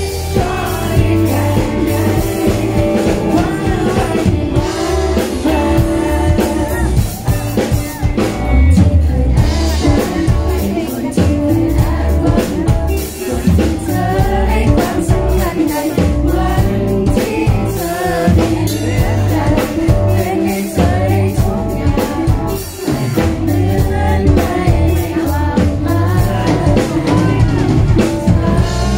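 A man singing live into a handheld microphone through PA speakers, over band accompaniment with a heavy bass and drum beat.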